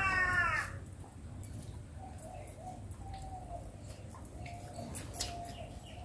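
A short, falling animal cry right at the start, then faint background noise with a thin, wavering tone that comes and goes.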